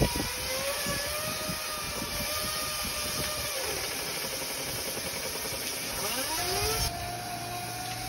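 Inflatable bounce-house blower running, forcing air through a dryer vent duct that holds trapped water: a steady rush of air with faint tones that waver in pitch. A few sharp knocks right at the start.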